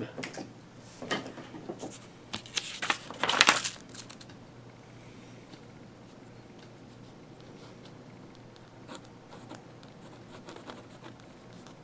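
Handling noises from the pen and desk in the first few seconds, loudest about three and a half seconds in. Then a Pilot Kakuno fountain pen's steel nib scratches faintly on lined notebook paper as a word is written.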